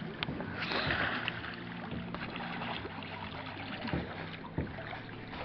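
Lake water around swimmers and a dock, with light splashing, a brief louder splash about a second in, and a low steady hum underneath.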